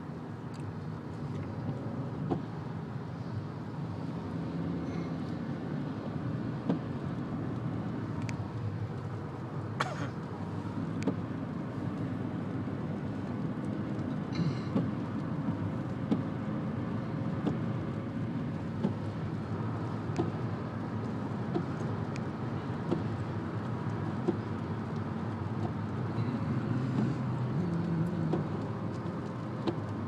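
Steady road noise inside a moving car at highway speed: engine and tyre noise, with a few faint clicks now and then.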